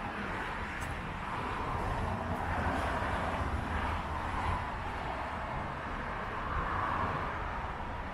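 City street traffic: cars passing one after another, a continuous tyre hiss over a low engine rumble that swells and eases as each vehicle goes by.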